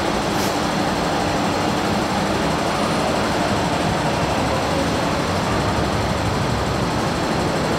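Steady hum and hiss of an MTR train standing at an underground platform, its equipment running, with no change in pitch or level. A short faint hiss about half a second in.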